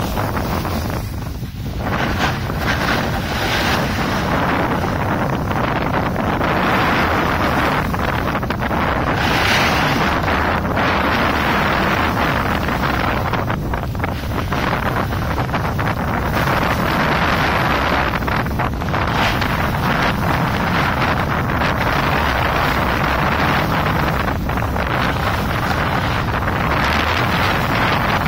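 Wind rushing over the microphone of a snowboarder's camera, mixed with the snowboard scraping over groomed piste snow as it carves downhill. The noise is loud and continuous, swelling and easing with the turns.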